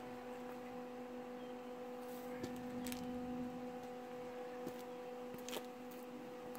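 A steady low hum with a fainter overtone, broken by a few light clicks and taps.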